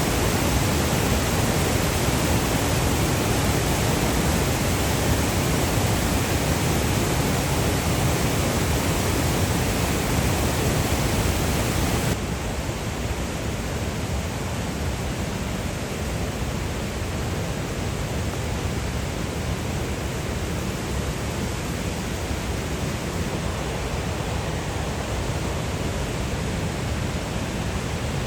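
Steady rush of fast-flowing water. It is louder and brighter for about the first twelve seconds, then drops suddenly to a slightly quieter, duller rush.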